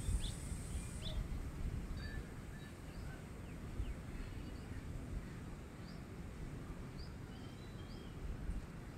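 Outdoor ambience: small birds giving scattered short chirps over a steady low rumble of background noise.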